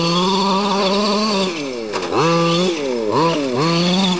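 Losi 5T's small two-stroke petrol engine revving as the 1/5-scale truck drives. It is held at high revs for about a second and a half, then the throttle is blipped several times, the pitch dropping and sweeping back up with each blip.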